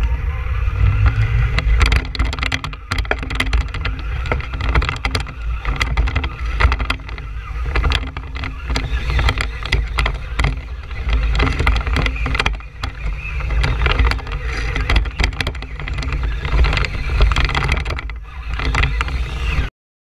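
Traxxas Stampede 2WD RC monster truck driving, heard from a GoPro mounted on the truck: its electric motor whines up in pitch at the start, over heavy wind rumble on the microphone and frequent knocks and rattles as the truck bounces over pavement and grass. The sound cuts off suddenly just before the end.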